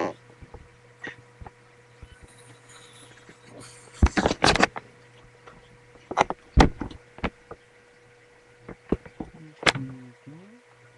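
Scattered knocks and clicks over a low steady hum, with a cluster of knocks about four seconds in and a brief sliding tone near the end.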